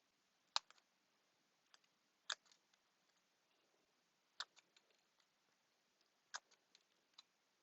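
Scissors snipping: four sharp snips about two seconds apart, each followed by a faint click or two, with near silence in between.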